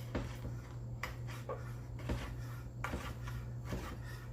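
Irregular light knocks and clicks from kitchen handling, about eight in four seconds, over a steady low hum.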